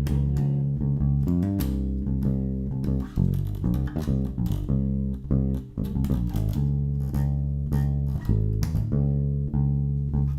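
ESP LTD B-155DX five-string electric bass playing a gospel bass line of held low notes that change about every second, with sharp finger plucks and string noise.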